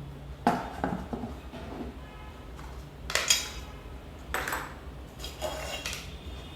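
Dishes clinking and knocking as a plate and bowl are handled and set down, in several separate knocks, some with a short ring after them.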